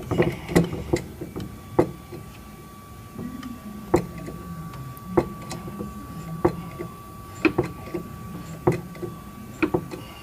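Sharp metal clicks and knocks at about one a second from tool work on a steel vehicle frame rail, over a low steady hum, with a faint steady high tone coming in about a second in.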